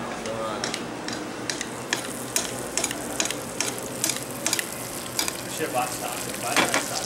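Louvar fillets frying in foaming butter in a pan over medium heat: a steady sizzle with frequent irregular sharp crackles and pops.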